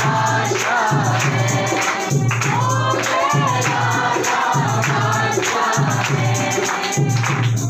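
A group singing a Christian worship song over music with a steady, pulsing beat.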